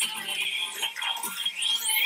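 Cheerleading routine music mix playing, with a rising sweep effect climbing through the last half second.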